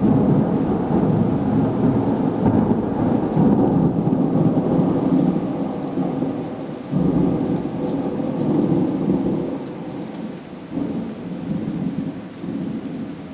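A thunderclap breaks out suddenly and rolls on as a long, deep rumble over falling rain. It surges again about seven seconds in, then gradually fades.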